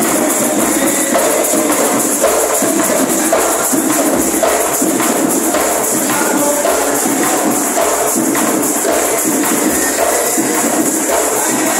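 Venezuelan San Juan parranda music: hand drums played in a steady, driving rhythm under a constant high shaking rattle.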